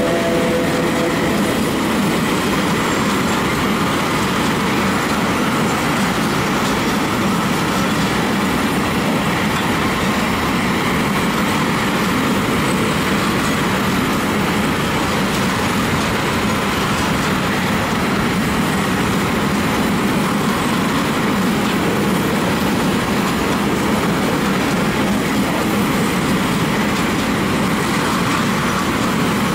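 Open-top wagons of a PKP Cargo freight train rolling past, their steel wheels making a loud, steady rolling noise on the rails.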